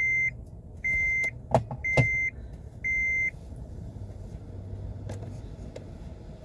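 Electronic beeper sounding a steady high beep about once a second, four times, then stopping about three seconds in. Two sharp clicks come between the beeps, and a faint low hum follows.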